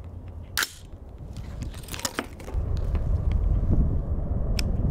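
A few sharp metallic clicks from handling a Colt LE6940 AR-15-type carbine: one about half a second in, a quick cluster around two seconds, another near the end. About halfway through, a loud low rumble comes in and stays.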